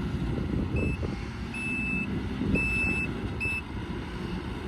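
A backup alarm on the stump-pulling machine beeping four times, in uneven lengths, over the low, steady running of its engine.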